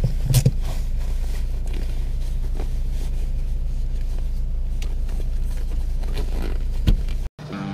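A 4x4 vehicle driving slowly on a wet forest track, heard from inside the cab: a steady low engine drone with a few knocks and rattles, the loudest just after the start and again near the end, where the sound cuts off abruptly.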